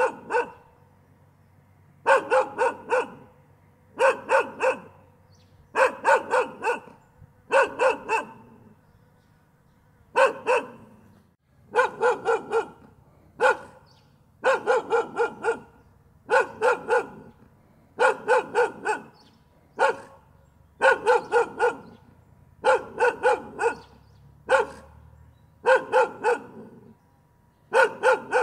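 A dog barking continuously in quick runs of two to five barks, with a short pause of about a second between runs.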